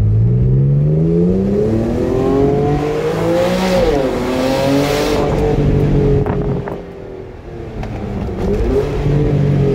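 Porsche Spyder sports car engine revving up hard under acceleration, wound out toward 4,000–5,000 rpm with paddle-shifted gear changes. The pitch climbs steadily, dips briefly at a shift about four seconds in, holds high, falls away about seven seconds in, then climbs again near the end. The exhaust note echoes off the back of a building.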